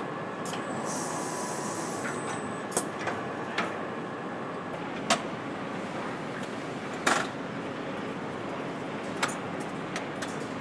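Engine assembly line ambience: a steady machinery hum with a short hiss about a second in and a handful of sharp metallic clicks and clanks scattered through.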